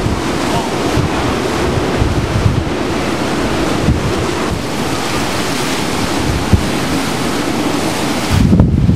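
Hurricane-force wind with wind-driven rain, a loud steady rush with the wind buffeting the microphone in low gusts, strongest near the end.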